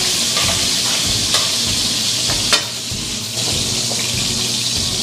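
Shrimp frying in hot oil in an aluminium wok as they are turned with metal tongs: a steady sizzle, with a couple of sharp metal clicks, the loudest about two and a half seconds in.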